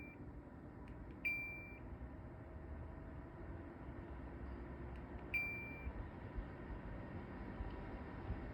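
LG AeroTower fan-purifier running with a steady low rumbling vibration noise, which the owner hears at higher fan speeds even after a filter change. Its control panel beeps twice, about a second in and again about five seconds in, each beep just after a small click.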